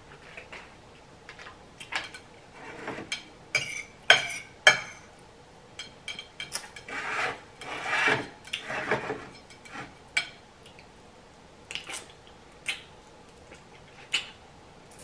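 A metal fork clinking and scraping against a plate of ramen noodles during eating, in short scattered clicks with a few longer scrapes.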